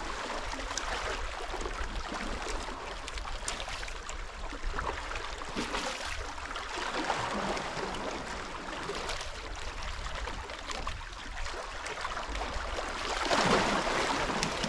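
Steady rushing of water along the shore, swelling louder near the end.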